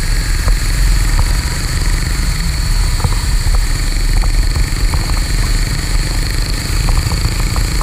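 Motorcycle riding along in traffic, heard from the rider's seat: a steady low engine and road rumble, with a few faint ticks.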